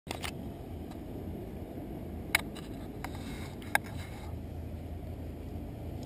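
Steady low rumble of wind and surf on an open ocean beach, broken by two sharp clicks, about two and a half and nearly four seconds in.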